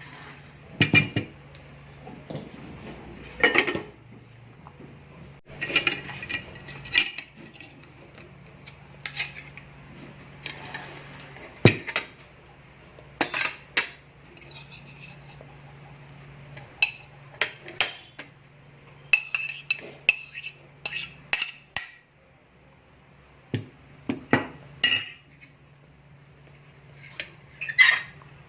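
Cutlery clinking and tapping against a plate during a meal, in irregular clusters of quick sharp clicks with a short ring. A faint low steady hum runs underneath.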